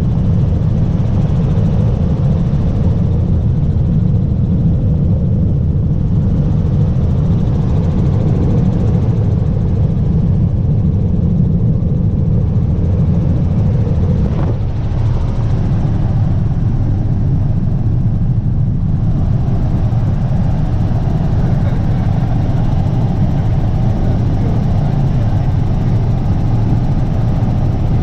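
Helicopter in flight: a loud, steady, low drone of rotor and engine, growing a little brighter in tone about two-thirds of the way through.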